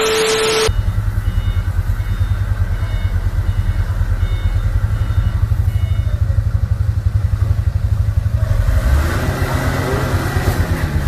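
A brief burst of TV-static noise with a steady beep, then an engine running steadily with a fast, even throb, heard from inside a car's cabin; from about three-quarters of the way through, a broader rush of noise joins it.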